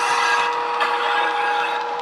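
Hornby Class 92 OO-gauge model electric locomotive running past under DCC sound, its decoder playing a steady electric-traction whine of two held tones through the small onboard speaker. Underneath is the rattling rumble of the model's wheels and mechanism on the track.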